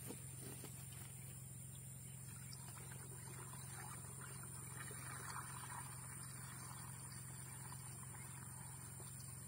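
Water poured from a bucket into the plastic tank of a knapsack sprayer, a soft splashing rush that builds about two seconds in and trails off near the end, over a steady low hum. The tank is being filled with water to make up an insecticide spray mix.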